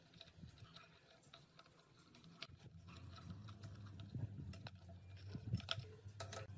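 Faint scattered clicks and taps, with a low steady hum that comes up about halfway through.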